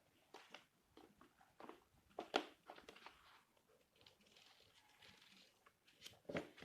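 Quiet handling of paper and cardboard board-game components: scattered light taps and clicks, with a soft paper rustle in the middle.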